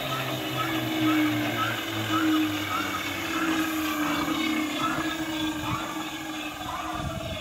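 SVPG-2 drilling-mortising machine running, a steady electric-motor hum with a faint repeating tick about twice a second from its working stroke.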